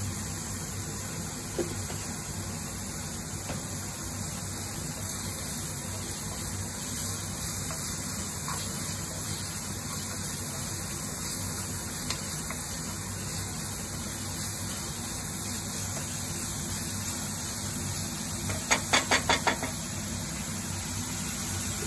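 Onion, garlic and ginger masala paste frying in oil in a kadai with a steady, gentle sizzle as it is stirred, at the stage where the oil begins to separate from the masala. Near the end comes a quick run of about five knocks.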